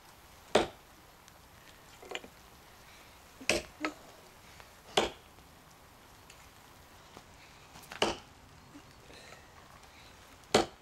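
Cold Steel Trail Hawk tomahawk chopping into a hard seasoned elm log: five sharp blows a few seconds apart, with a couple of lighter knocks between them.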